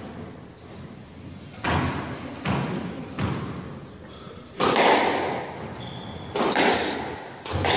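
Squash ball being hit by rackets and striking the court walls, each sharp knock followed by a short echo in the hall. A few softer knocks come in the first three seconds, then louder shots about four and a half seconds in and twice more about a second and a half apart as a rally starts.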